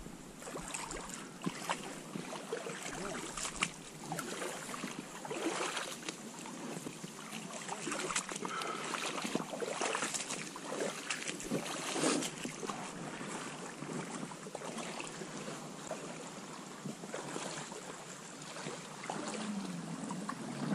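Rubber wading boots sloshing and splashing through shallow water and flattened reeds, with grass and reeds rustling against the inflatable boat as it is led along, and wind on the microphone.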